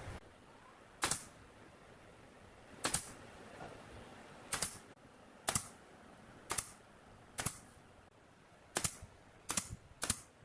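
Pneumatic nail gun firing nails one at a time through a thin sheet into a pine cabinet top: nine sharp snaps, spaced a second or two apart and coming quicker near the end.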